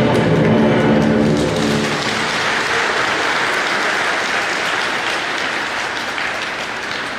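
Program music ends about two seconds in, giving way to steady audience applause that slowly tapers off.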